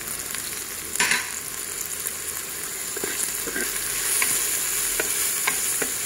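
Sliced onion, garlic, lemongrass and chili sizzling in hot oil in a pressure cooker pot, with one sharp knock about a second in. From about three seconds in, a wooden spatula stirs them, scraping across the pot.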